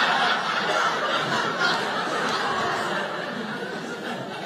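Audience laughing after a punchline, the laughter dying down gradually.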